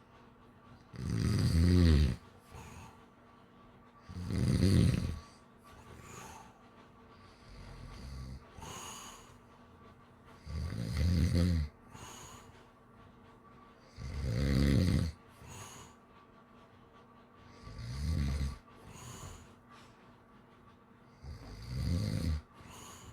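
A sleeping pit bull–Labrador mix dog snoring: six loud, low rumbling snores, one every three to four seconds, with softer breaths between them.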